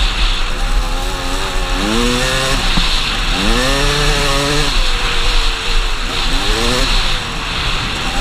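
Suzuki RMX250's single-cylinder two-stroke engine revving under way on sand. Its pitch climbs and drops back again and again with the throttle, over a steady rushing noise.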